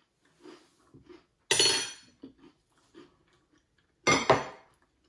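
Metal spoon clinking against a large glass cereal bowl twice, each strike ringing briefly, with faint small clicks between.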